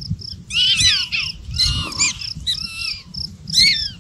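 Black-tailed prairie dogs calling: four bursts of squeaky chirps about a second apart, each note sweeping down in pitch.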